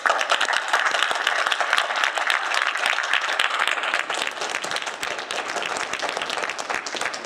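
Audience applauding, starting abruptly and holding steady throughout.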